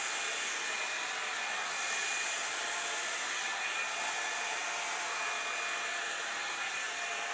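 Revlon One-Step hot-air brush dryer running steadily: an even airflow hiss with a faint steady whine.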